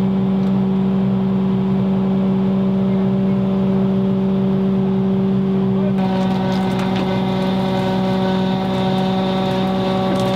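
Excavator's diesel engine running steadily at a constant pitch. About six seconds in, the sound shifts and higher tones join it.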